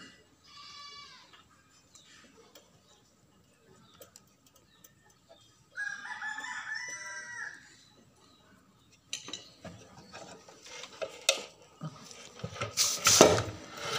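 A rooster crowing twice, about half a second in and again around six seconds, each a pitched call lasting a second or more. From about nine seconds on come irregular knocks and rattles of handling, loudest near the end.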